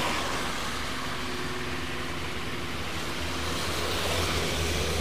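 Road traffic on a wet road: tyres hiss on the wet asphalt under the hum of engines. It grows louder in the second half as a van passes close by.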